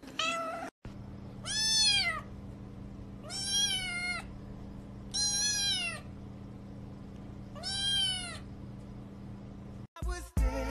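Young ginger kitten meowing four times, about two seconds apart: short, high-pitched mews that rise and then fall in pitch. Music cuts in near the end.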